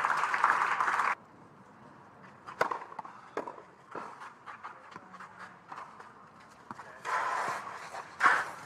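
Tennis rally on a clay court: sharp racket strikes on the ball every second or so, with faint shoe scuffs on the clay between them. Crowd noise runs for about the first second and cuts off abruptly, and swells again near the end before a last loud strike.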